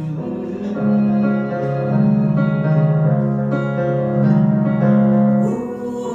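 Piano accompaniment to a musical theatre song, playing held chords that change about once a second.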